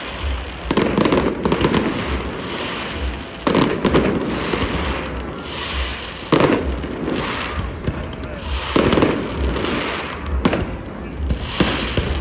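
Fireworks display: sharp bangs of shells bursting, one every second or two to a few seconds apart, over a continuous crackling haze.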